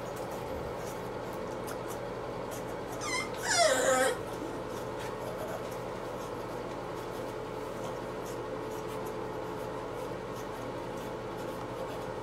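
An American Bully puppy whimpers while being rubbed dry in a towel: a short cry about three seconds in, then a louder whine that falls in pitch and stops about a second later.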